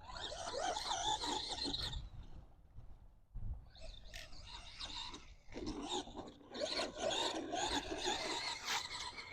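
Brushed electric motor and drivetrain of an RC monster truck (Arrma Gorgon) whining with the throttle as it is driven over soft, wet dirt, in three bursts: about two seconds, then after a short pause two more running nearly together to the end, the pitch wavering up and down.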